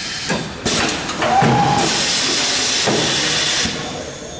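Corghi Artiglio Master Code tyre changer's pneumatics hissing in bursts of compressed air as its tool head moves into position in automatic mode; the longest burst lasts about two seconds. A brief tone rises and falls about a second in.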